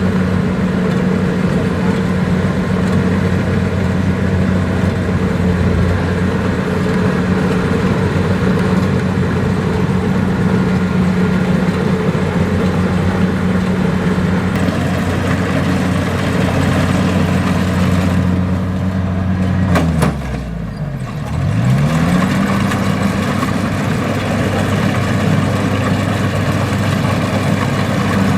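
Kubota DC-70 combine harvester's diesel engine running steadily. About two-thirds of the way through there is a click, the engine note drops sharply, and it climbs back to its old pitch within about two seconds.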